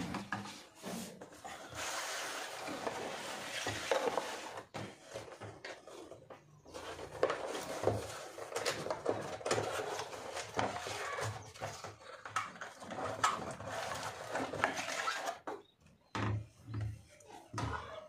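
Rustling and scraping of a cardboard box and its packaging as a keyboard is taken out, with scattered clicks and a few low knocks near the end as it is set down on a wooden desk.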